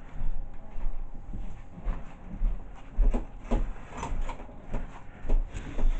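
Irregular rubbing, scraping and knocking on cardboard, with low thumps close to the microphone, as a cat shifts about in a cardboard box right against the camera.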